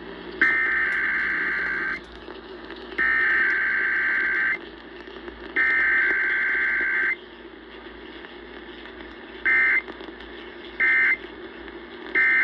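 Emergency Alert System SAME data tones: three long bursts of buzzy two-tone digital data, each about a second and a half, with a short gap between them, then three short bursts of the same sound near the end. These are the coded header repeated three times and the three end-of-message bursts of a required weekly test.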